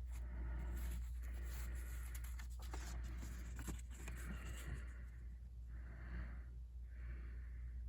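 Crisp, new paper banknotes rustling and crinkling in the hands in irregular bursts, over a steady low hum.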